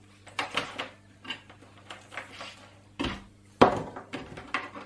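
Handling noise from a grey ribbon cable being pulled and laid across an open Commodore 64: a string of short clicks and rustles, with a sharper knock about three and a half seconds in.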